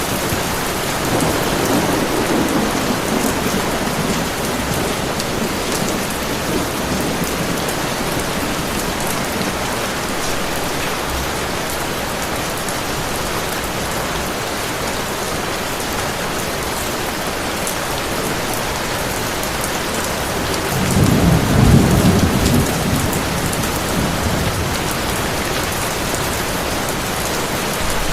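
Steady heavy rain, with rolls of thunder: a soft low rumble a second or two in and a louder one about two-thirds of the way through.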